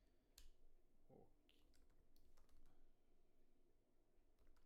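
Faint computer keyboard typing: a handful of scattered key clicks as a word is typed.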